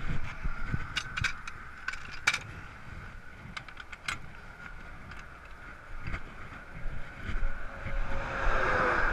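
Highway traffic going by, with one vehicle swelling loudly past near the end, and a few sharp metallic clinks of tools in the first few seconds.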